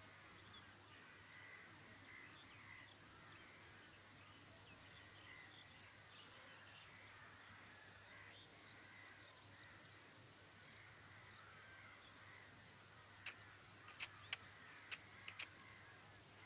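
Near silence: faint outdoor background with faint, scattered bird calls. Near the end come a handful of short, sharp clicks.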